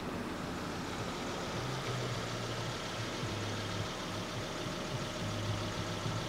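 An engine running steadily at a low idle, a low hum that swells in and out from about one and a half seconds in.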